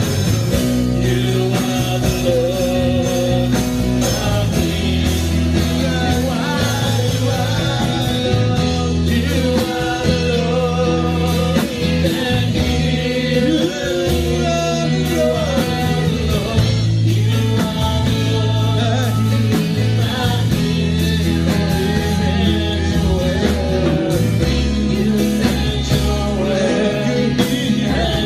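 Gospel worship music: singing over a band with a bass line and busy drums.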